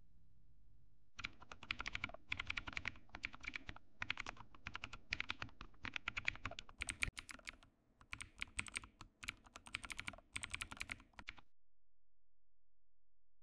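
Computer keyboard typing: bursts of rapid key clicks that start about a second in and stop abruptly near the end.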